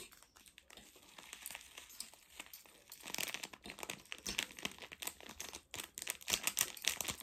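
Plastic packaging crinkling as it is handled, in a dense run of irregular crackles that grows busier from about three seconds in.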